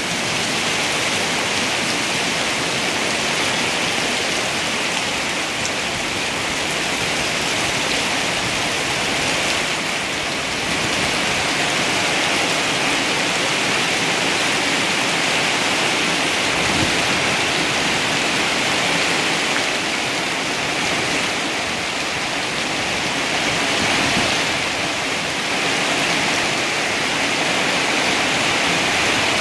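Heavy downpour: rain pouring steadily onto leaves, plant pots and a flooded paved yard, a continuous hiss of splashing water.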